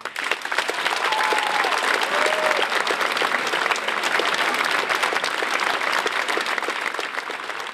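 Theatre audience applauding steadily, a dense clatter of many hands clapping, with a few faint cries from the crowd about one to two seconds in.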